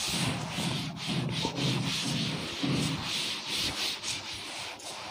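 Cloth duster rubbing chalk off a blackboard in repeated back-and-forth swipes.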